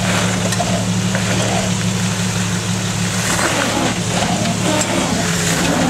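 Jeep Wrangler TJ engine running at a steady low speed while crawling down a steep rock ledge, an even hum with no big revs.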